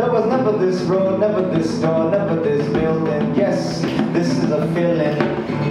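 Live acoustic music: a guitar played with a hand drum while a voice sings a wordless, wavering melody.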